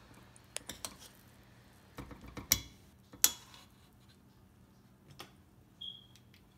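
Metal spoon scooping rice and clinking against the side of a stainless steel pressure cooker pot: a few scattered light clicks, the loudest about two and a half seconds in, and a short high ring near the end.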